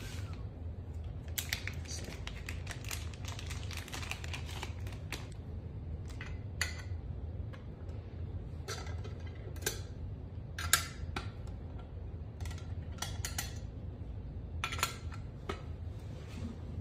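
Irregular light metallic clicks and taps of an Allen key working the corner screws of a small metal box, over a steady low hum. The sharpest click comes about eleven seconds in.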